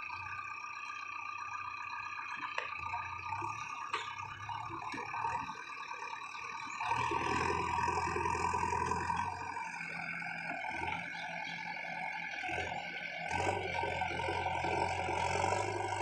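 JCB 3DX backhoe loader's diesel engine running under load as the machine works through mud with its front loader bucket; it revs up and grows louder about seven seconds in, and again near the end.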